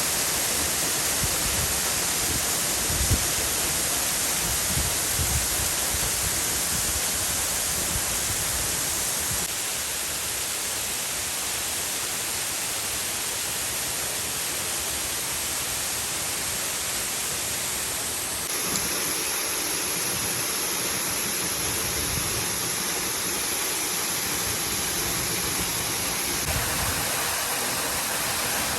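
Waterfall water rushing and splashing in a steady, dense roar. The tone of the rush changes abruptly a few times.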